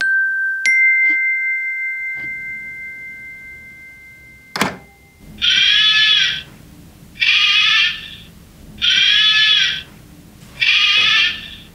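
A two-note electronic ding-dong chime rings out and fades away, then a sharp click. After that a sheep-shaped children's wake-up clock sounds its alarm: four identical pitched calls, evenly spaced about every second and a half.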